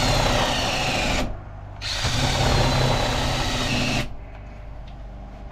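DeWalt cordless drill boring into the epoxied wooden handle stub in an axe head's eye. It runs in two bursts: about a second, a short pause, then about two seconds more, before stopping.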